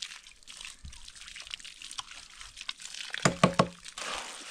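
A trowel scraping and turning wet cement mix in a metal wheelbarrow, with a few loud knocks about three seconds in. Water from a garden hose pours into the wheelbarrow near the end.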